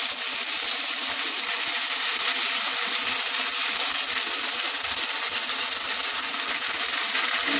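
Marinated paneer sizzling steadily in hot mustard oil in a kadai, stirred with a wooden spatula.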